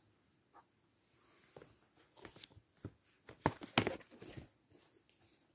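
Plastic movie cases being handled and shuffled: scattered soft rustles and clicks, with a couple of sharper plastic clacks about three and a half seconds in.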